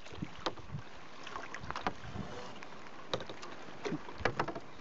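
A kayak paddle being worked: a run of short, irregular splashes and knocks from the paddle, over a faint steady hiss.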